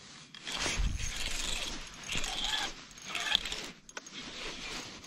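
Small spinning reel cranked quickly by hand to bring in a hooked walleye, mixed with scraping and rustling from handling the rod and gear.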